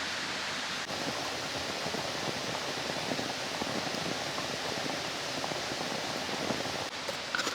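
Mountain stream flowing, a steady rush of water.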